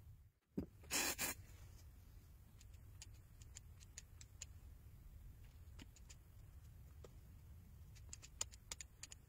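Faint handling sounds of a smartphone on a work mat: a short scraping rub about a second in, scattered light clicks and taps, and a quick run of taps on the phone near the end, over a steady low hum.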